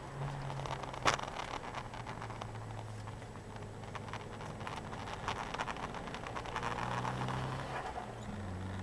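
Nissan 200SX engine heard from inside the cabin while lapping a race track, its note stepping down and climbing again with throttle and gear changes over road noise. A sharp click about a second in.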